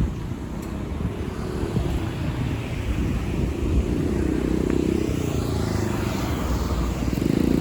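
Road vehicles driving past, a steady low rumble that swells about four seconds in and again near the end.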